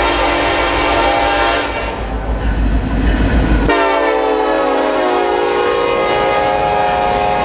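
Horn on the lead Norfolk Southern SD70ACe locomotive, sounding several tones at once in two blasts. The first lasts about a second and a half; the second starts about three and a half seconds in, lasts nearly four seconds and drops slightly in pitch as the locomotive passes. The diesel locomotives rumble underneath the horn.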